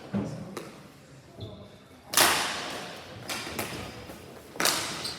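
Sharp knocks of ball hockey play, the ball and sticks striking the rink boards, echoing in a large hall: three main hits, the loudest about two seconds in, with smaller taps between.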